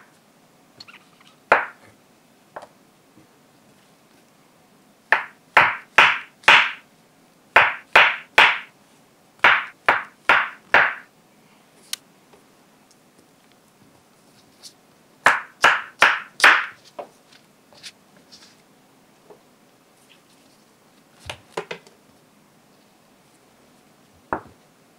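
Kitchen knife slicing button mushrooms on a wooden cutting board: four runs of about four quick cuts each, every stroke a crisp slice ending in a knock of the blade on the board. A few lighter knocks follow near the end.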